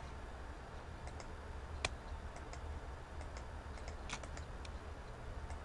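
Sparse computer mouse and keyboard clicks over a low steady hum: one sharper click about two seconds in and a quick cluster of clicks about four seconds in.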